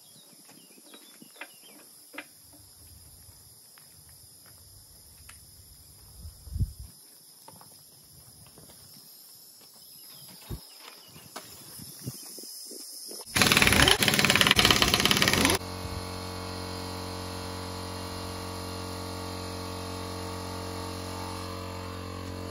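Scattered light knocks and clanks of wheel work, then about 13 seconds in a loud two-second burst from a pneumatic impact wrench on the wheel nuts. The portable air compressor's motor then runs with a steady hum.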